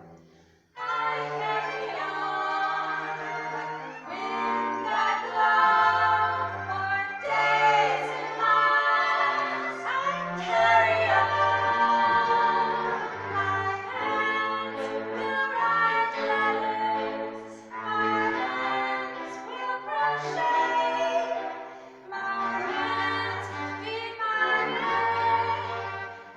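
A live song performance: several voices singing together in long held notes over low sustained bass notes. The music comes in about a second in, after a brief hush.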